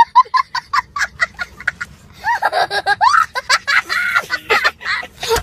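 A young boy laughing hard: a quick run of short, high laughs for about two seconds, then longer laughs whose pitch swings up and down.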